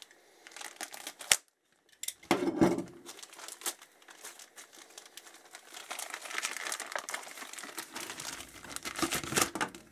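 Paper and cardboard packaging rustling and crinkling as a hand rummages in an open cardboard box, with a sharp click a little over a second in.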